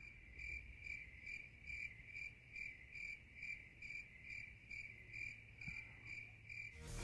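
A chirping insect, faint and regular, about two and a half chirps a second, over a low steady hum.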